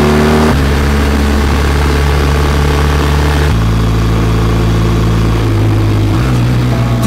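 Motorcycle engine running under way, recorded on board: its pitch steps down about half a second in and again about three and a half seconds in as the gears change up, then holds steady.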